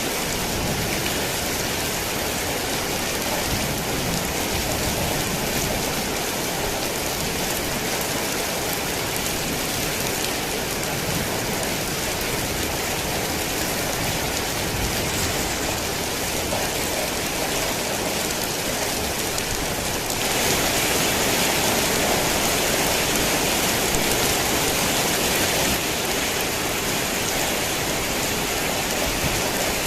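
Heavy rain pouring steadily as a dense, even hiss. About two-thirds of the way through it turns louder and brighter for around six seconds, then settles back.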